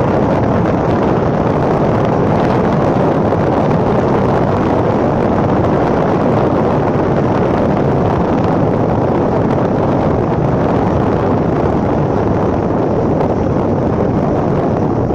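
Wind buffeting the microphone: a loud, steady rumble of wind noise with nothing standing out above it.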